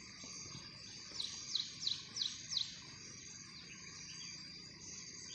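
Red-whiskered bulbul calling a quick run of five short descending notes, about three a second, a second or so in, over a steady high insect whine.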